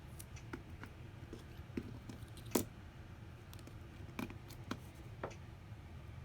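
Scattered small clicks and taps of an iPhone SE's battery and parts being handled and pressed into the phone's housing, the sharpest click about two and a half seconds in.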